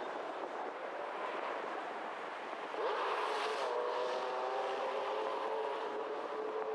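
A motor running with a steady hum of several tones over a rushing noise; about three seconds in the rush grows louder and the tones drop slightly, then hold steady.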